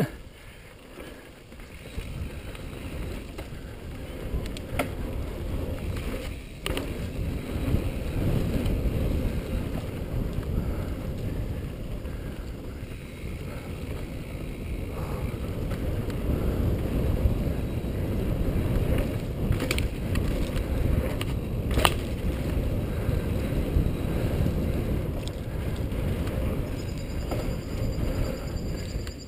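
Cannondale Jekyll mountain bike descending dry, dusty dirt singletrack: tyres rolling over hardpack and loose ground with a steady rumble that grows louder about seven seconds in as speed picks up, and a few sharp knocks of the bike jolting over bumps.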